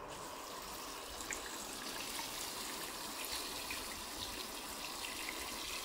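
Hot water pouring in a steady stream from a stainless steel kettle into a clay pot, splashing over peanut roots and pork bones.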